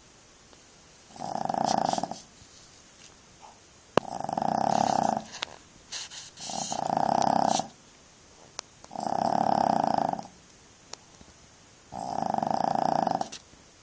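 A sleeping puppy snoring: five snores about a second long, one every two to three seconds, with a few faint clicks between them.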